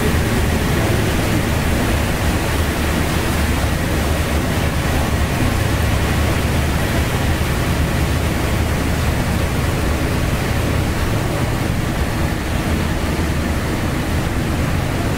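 Steady rushing of churning water, the propeller wash of a motor barge pulling out of a lock chamber, over a constant low rumble.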